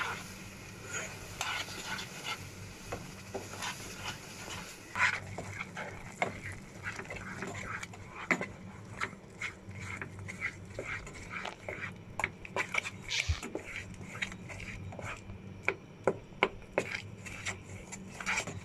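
Wooden spatula stirring and scraping a thick chana dal halwa mixture in a nonstick pan, with frequent irregular scrapes and taps against the pan, kept going so the dal does not stick to the bottom. A low steady hum runs underneath.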